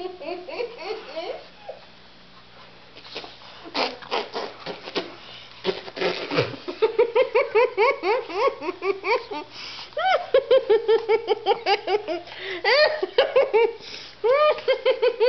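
A woman laughing hard in long runs of quick, breathy pulses, several a second, getting louder in the second half, with a few scuffling rustles about four to six seconds in.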